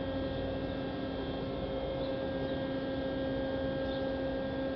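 Steady machinery hum, a low tone with a second tone an octave above, from the pontoon bridge's hydraulic winch drive running as it pulls the pontoon barge open on its opening cable.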